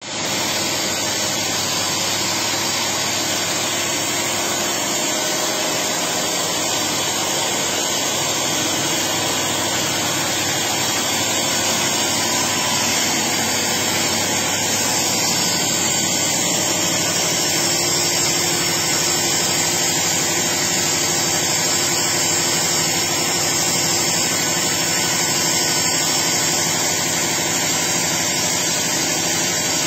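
Engine-driven generator set running steadily on gas from a biomass gasifier: a continuous, even machine noise that does not change.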